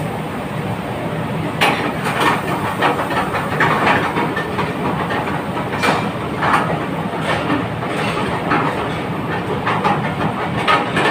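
Steady rushing noise with irregular metal clanks and knocks scattered through it: the working din of a busy commercial hotel kitchen.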